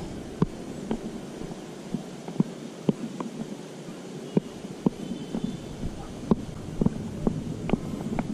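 Small irregular clicks and taps, about one or two a second, over a quiet outdoor hiss: handling noise from hands gripping an airgun held at aim.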